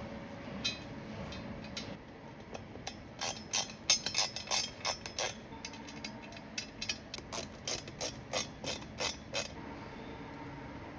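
Run of sharp mechanical clicks, about two to three a second, starting about three seconds in and stopping near the end, like a ratchet or pawl mechanism at work.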